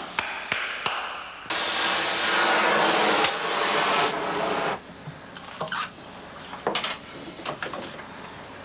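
A few sharp knocks, then a gas welding torch hissing loudly and steadily for about three seconds as it heats borium onto a horseshoe. The hiss weakens and cuts off suddenly, and light metal clinks follow as tools and the shoe are handled.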